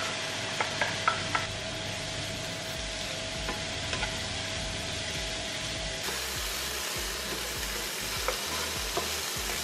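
Shredded cabbage and vegetables sizzling in an oiled frying pan as they are stir-fried with a wooden spatula, a steady frying hiss with a few light knocks and scrapes, several of them near the start as the cabbage is tipped in.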